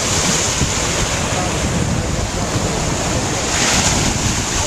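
Wind buffeting the microphone over the steady wash of small surf on a sandy beach.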